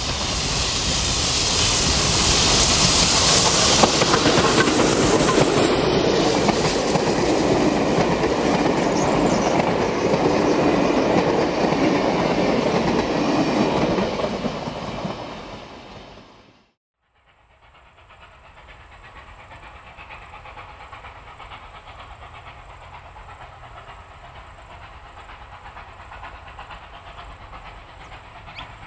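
Steam locomotive 5910 working a train of passenger carriages: loud steam exhaust and hiss as it passes close by, then the carriages rolling past on the rails, fading out about sixteen seconds in. After a brief silence, the same locomotive is heard working at a distance, much quieter.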